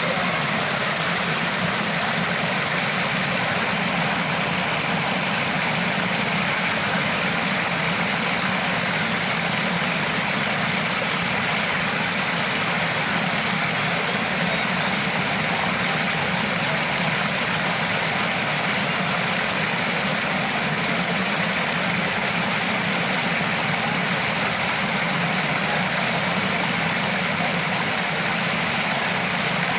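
Small waterfall: water pouring and splashing in a steady, unbroken rush.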